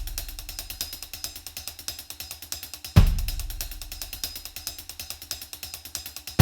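Background music with a fast, steady hi-hat and drum beat and a deep bass hit about three seconds in.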